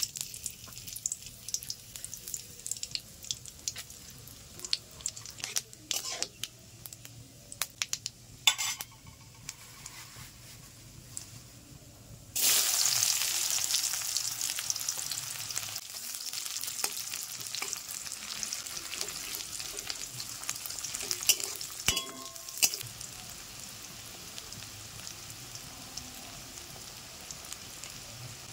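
Dried red chillies popping and crackling in hot mustard oil in a kadai. About twelve seconds in, a sudden loud sizzle as sliced onions go into the oil, which settles into steady frying with scattered spits.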